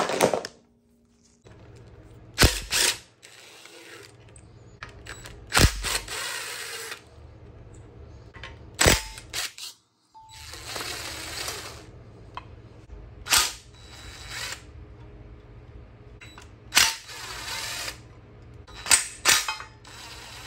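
Hand ratchet wrench clicking in short runs while bolts on a small-block Chevy 350 are undone. About eight sharp metallic clanks fall between the runs, every few seconds.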